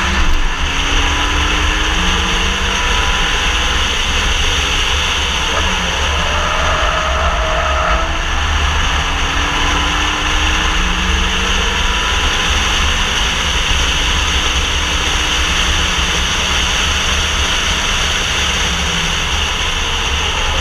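Wind buffeting and road noise on an exterior camera mounted beside the front wheel of a Renault Mégane RS driven at speed on track. Under the steady, heavy low rumble the engine is faintly heard rising and falling in pitch.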